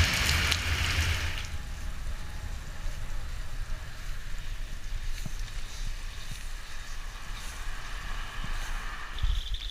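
Steady hiss of rain and wet road noise, loudest for the first second or so and then dying down to a softer patter. Near the end a high, pulsing chirr of insects starts up.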